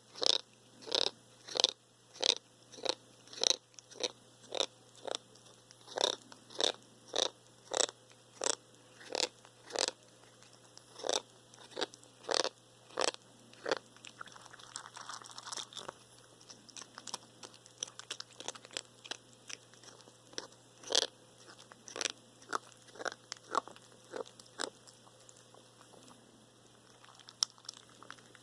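Russian blue cat chewing food, each bite giving a sharp click or crunch, about two a second at first, then fainter and more irregular, then spaced out again. The chewing noise is one the owner finds strange, in a cat that is eating too little even after a dental cleaning.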